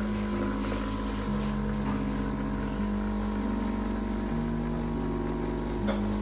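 Background music of sustained low notes that change pitch about every one and a half seconds, under a steady high cricket-like tone.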